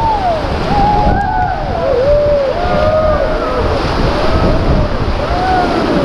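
River whitewater rapids rushing steadily around an inflatable raft, with wind buffeting the microphone.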